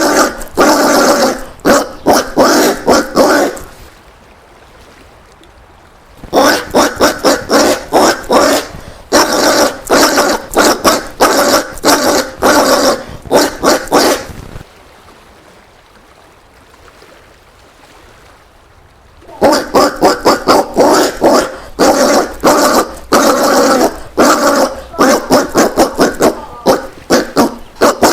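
Collared peccaries (caititu) calling: bouts of rapid, repeated calls, several a second, broken by two pauses, a short one about four seconds in and a longer one in the middle.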